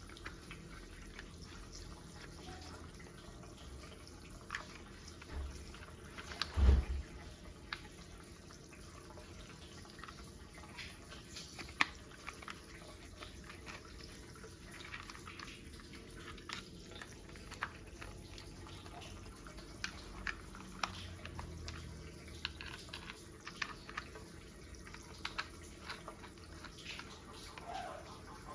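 Plastic toy parts clicking and tapping irregularly as they are handled and fitted together, with one much louder knock about seven seconds in.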